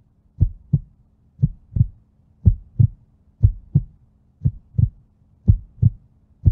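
Heartbeat sound effect: low double thumps, lub-dub, about once a second over a faint steady hum.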